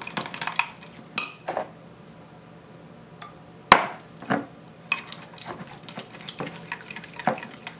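A metal spoon stirring thick flour batter in a glass bowl: irregular wet scraping, with the spoon clicking against the glass, one sharp click a little under four seconds in.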